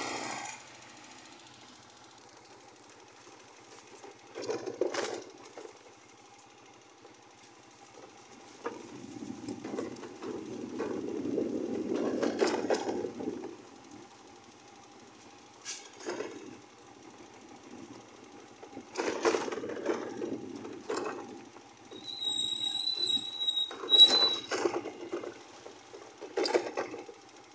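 Small motorcycle running along a rough dirt track, its engine and frame rattling and clattering in uneven surges, with a faint steady whine underneath. A brief high squeal sounds about two-thirds of the way through.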